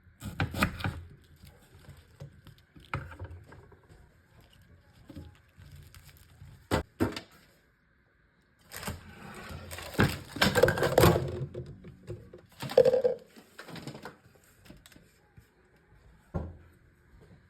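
Kitchen handling noises: scattered knocks and clunks of things being set down or moved, two close together about seven seconds in, and a longer stretch of rustling and scraping from about nine to fourteen seconds in.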